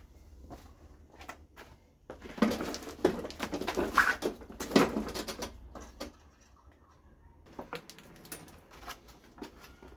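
A walk-behind lawnmower being tipped onto its side to drain the oil: a few seconds of scraping and clunks, then scattered light clicks and taps.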